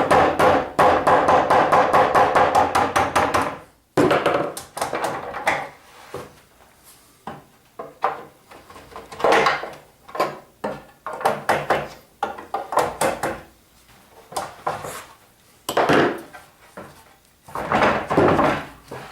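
Rubber mallet beating on wooden table-top boards to knock the dry-fitted domino joints apart, with the boards knocking and clattering as they come loose. A dense run of rapid knocks at first, then scattered knocks and clatter.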